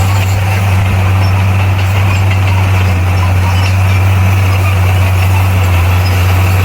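Bulldozer's diesel engine running steadily with a deep, even drone.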